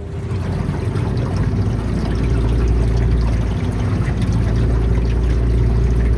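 Boat underway: water rushing and splashing loudly against the hull over the low rumble of the engine.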